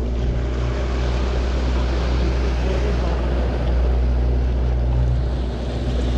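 A motorboat's engine running steadily under way, with water rushing past the hull.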